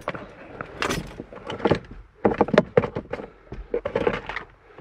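A hand rummaging through the open dashboard glovebox shelf of a Land Rover, giving an irregular run of plastic clicks, knocks and rattles as the things in it are shifted about.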